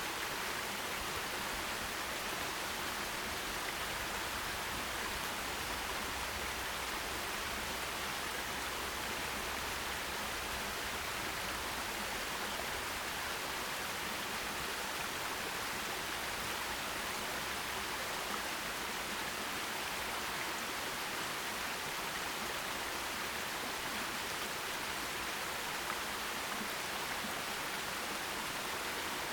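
Forest stream running water, a steady even rushing hiss with no breaks or separate splashes.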